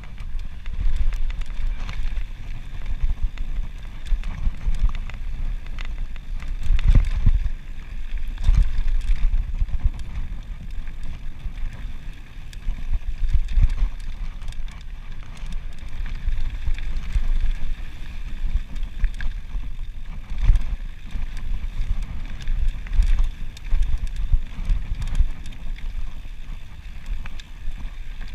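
Mountain bike riding fast down a dirt and gravel singletrack, with heavy wind rumble on the microphone, tyres rolling over gravel, and many short knocks and rattles from the bike over bumps.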